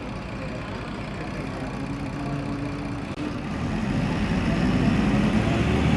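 Mercedes-Benz O500U city bus diesel engine running at low revs. About three seconds in, it gets steadily louder as the revs rise.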